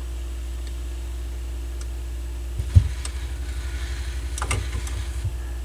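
Steady low electrical hum from a Dual CS 530 turntable's signal through the amplifier and speakers. A little under three seconds in, a knock is followed by a rapid, rough pulsing buzz for a few seconds. The repairer suspects a dirty connection at the headshell behind the hum.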